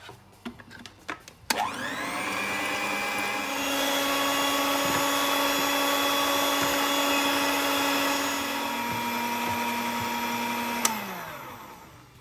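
Electric hand mixer switched on with a click about a second and a half in, its motor whining up to speed with the beaters whisking liquid in a plastic jug. It steps up to a higher pitch about three and a half seconds in, then is switched off near eleven seconds, the whine falling away as it winds down.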